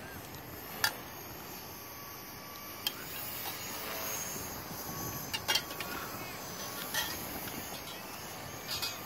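Distant small electric RC helicopter's motor and rotor whine, steady over a bed of wind and background noise, with a few short sharp clicks scattered through.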